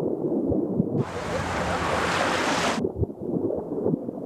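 Sea water sloshing and washing, with a louder hissing rush of water from about one second in that lasts nearly two seconds.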